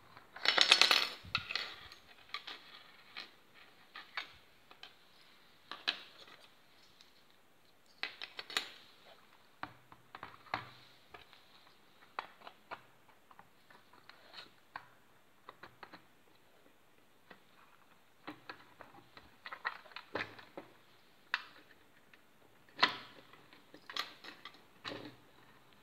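Scattered clicks, taps and light rattles of a vintage plastic toy car and its small metal parts being handled on a wooden table, with a screwdriver working at the chassis. The loudest is a clattering cluster about a second in, and there is a sharp knock near the end.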